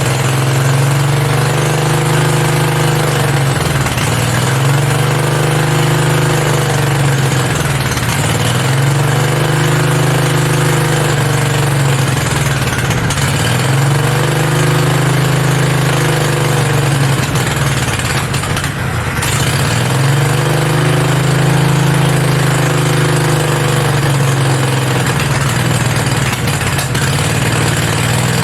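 Generator V-twin engine on a home-built mini bike running unloaded, belt off and throttle not hooked up, on its first start. It is idling way too high, and its note rises and dips about every four seconds.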